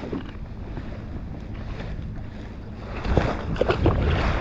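Wind on the microphone and water lapping at a kayak hull. About three seconds in comes a burst of splashing close beside the kayak as a released tautog hits the water and swims off.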